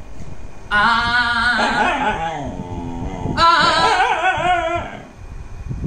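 A dog howling along with a man singing held notes: two long wavering howls of about a second and a half each, the first starting about a second in and sliding down in pitch near its end, the second starting about three and a half seconds in.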